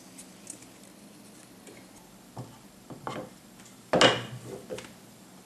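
Wooden vise parts knocking and clattering against each other and the workbench as they are handled, a few separate knocks with the loudest about four seconds in.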